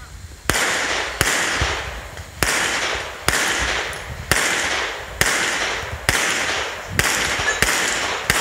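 Springfield XD(M) 5.25 9mm pistol firing a string of about ten shots, spaced roughly a second apart. Each sharp crack trails off in a fading echo.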